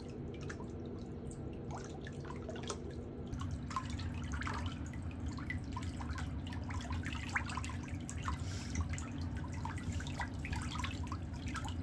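Water dripping irregularly in many small drops, over a low steady hum.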